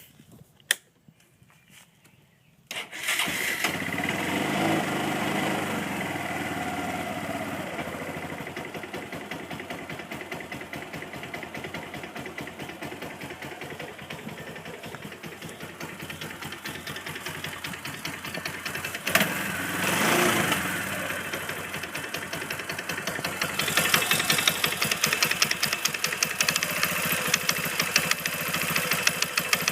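Kawasaki four-wheeler engine starting about three seconds in and running with a rhythmic knock, briefly revved around two-thirds of the way through and running louder near the end. The owner is sure the noise is the clutch: either a worn washer letting it slide on the crankshaft or a bad clutch bearing.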